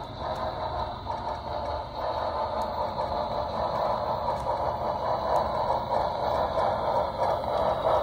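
HO scale model train running on the track, its wheels clattering and clicking over the rails, slowly growing louder.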